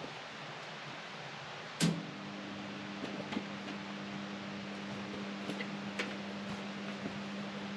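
A sharp click about two seconds in, then a steady low electrical hum, with a few faint ticks over a background hiss.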